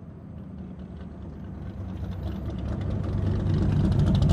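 A vehicle engine running with a steady low hum that grows louder throughout, with a rapid ticking clatter over it in the second half.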